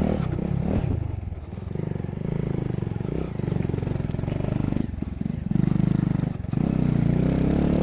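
Motorcycle engine running under way on a rough trail, the throttle opened and eased off several times so the engine note rises and drops in surges.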